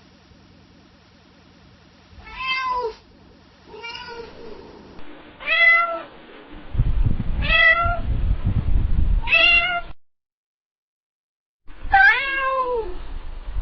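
Domestic cat meowing: about six separate meows a second or two apart, each rising and then falling in pitch. A low rumble runs under the meows in the middle, and there is a short gap of dead silence before the last meow.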